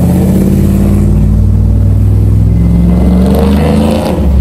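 Cammed 6.0 LS V8 in a Chevrolet Silverado running loud and steady through its exhaust.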